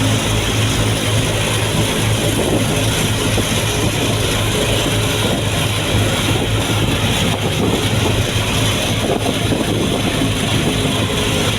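Steady engine and road noise of a car being driven, with a constant low hum.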